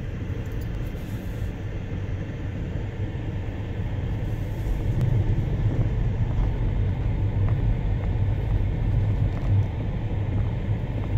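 Car driving along an unpaved dirt road, heard from inside the cabin: a steady low road rumble of tyres and engine, a little louder from about halfway through.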